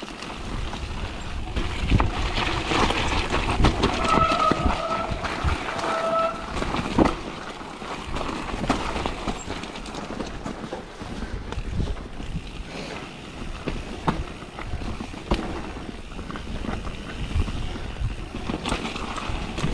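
Santa Cruz Nomad mountain bike riding down wet, rooty forest singletrack: tyres rolling over dirt and roots, with frequent knocks and rattles of the bike over bumps and wind rushing on the microphone. A short high squeal comes about four seconds in and again about six seconds in.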